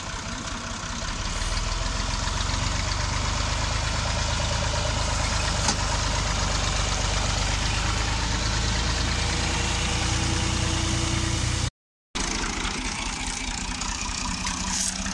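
Massey Ferguson 240 tractor's three-cylinder diesel engine running steadily. It speeds up and gets louder about a second in, and is quieter and nearer idle after a brief cut near the end.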